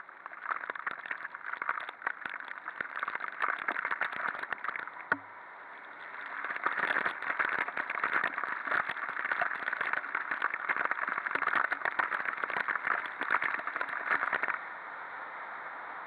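Heavy rain pattering on a camera mounted on a moving scooter: a dense crackle of drop impacts over a hiss. It eases for about a second around the middle, then stops abruptly near the end, leaving a steadier hiss.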